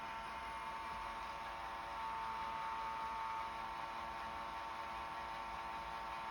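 Roomba robot vacuum running with a steady electric motor whine made of several even tones.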